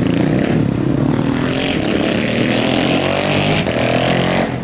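Modified car's engine accelerating hard, its exhaust note climbing steadily in pitch over the last couple of seconds.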